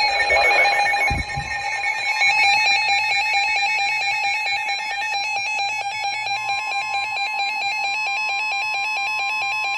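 NOAA weather radios sounding their alert for a flash flood warning: an electronic alarm of rapid, evenly pulsing beeps. A steady single tone, the 1050 Hz warning alarm tone, joins about six seconds in. A couple of low thumps come about a second in.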